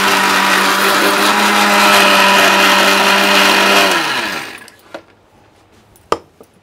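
Electric mixer-grinder with a steel jar running at full speed, grinding dry spices to powder, then switched off about four seconds in, its motor hum falling in pitch as it winds down. Two light knocks follow.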